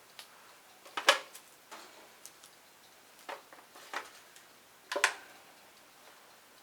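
Irregular clicks and knocks from a table fan being handled, the two loudest about a second in and about five seconds in, with a few lighter ones between.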